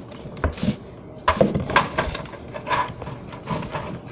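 Several irregular light clicks and knocks of hard plastic model-kit parts being handled and fitted together on a tabletop.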